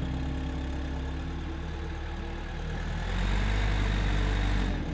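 A farm vehicle's engine idling steadily, picking up in revs and loudness about three seconds in, then dropping back near the end.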